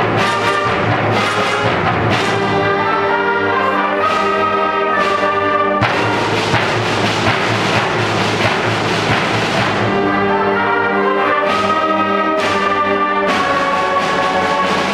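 Concert band playing a piece, with brass and woodwinds holding sustained chords over timpani. The music stays loud throughout, with a noisier, fuller stretch near the middle.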